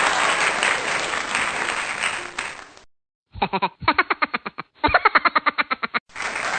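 Applause fades out. After a brief silence, a rapid stuttering pitched sound comes in three short bursts, about ten pulses a second. Applause starts again near the end.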